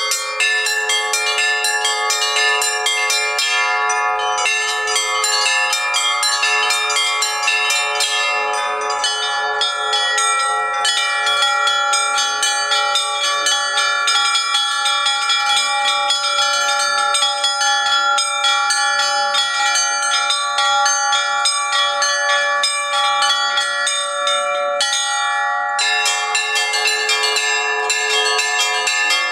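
Russian church bells ringing continuously: several bells of different pitches, the small high bells struck in rapid patterns over deeper bells that hum on. The high bells pause for a moment near the end, then resume.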